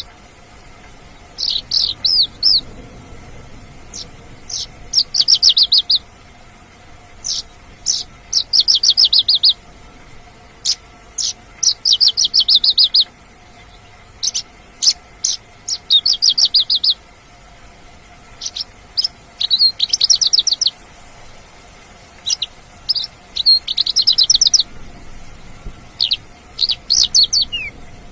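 Mongolian lark singing in full voice: high, rapid trilled phrases about a second long, repeated every couple of seconds, with sharp single notes scattered between them.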